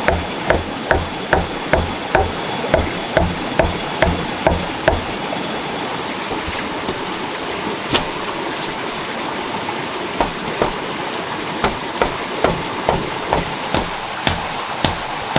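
A stone striking the top of a wooden stake again and again, driving it into the ground: sharp knocks at about two and a half a second that stop about five seconds in and start again at the same pace about ten seconds in. A steady rushing noise lies underneath.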